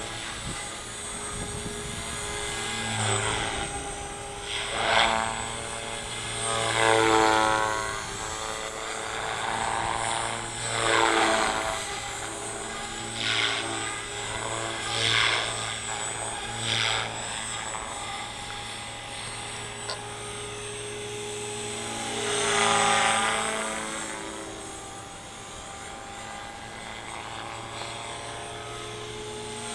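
OXY 4 electric RC helicopter flying: a steady whine from its Scorpion motor and rotors, swelling in loudness several times as it manoeuvres and passes.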